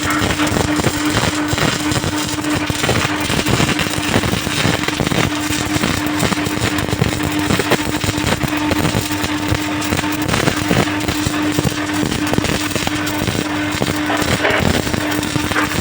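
MIG welding arc crackling steadily and without a break as a continuous bead is laid, with a steady hum underneath.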